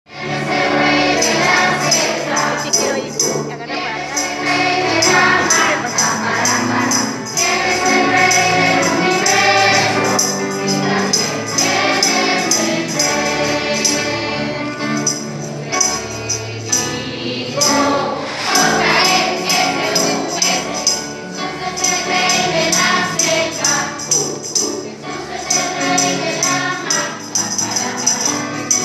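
A group of children and young people singing a Christian worship song together in Spanish, over music with a steady jingling beat.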